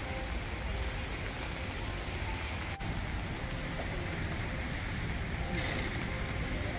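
Steady rain falling, an even hiss with a low rumble underneath; the hiss turns brighter about five and a half seconds in.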